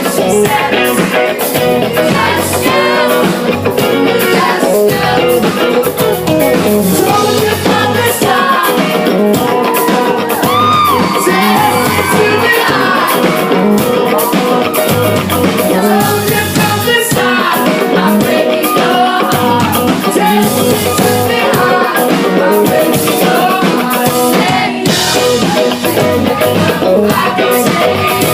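Live pop-rock band playing loud and amplified: electric guitars, bass and drum kit under sung vocals.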